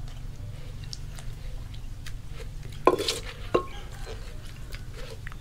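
Wooden pestle pounding in a clay mortar through a wet mash of tomatoes, chili, garlic, lime juice and fish sauce. Light knocks and scrapes, with two louder knocks about three seconds in, over a low steady hum.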